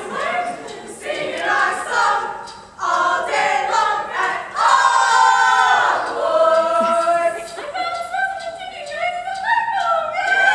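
High school choir singing a cappella, several voices holding notes together in chords.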